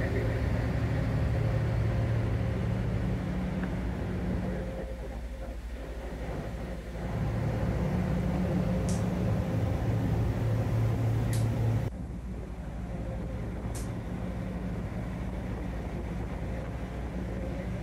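Fast crew boat under way at sea: its engines give a steady low drone, with a noisy rush of water and air over it. The sound eases briefly a few seconds in, then about two-thirds through it drops suddenly to a lower, quieter drone.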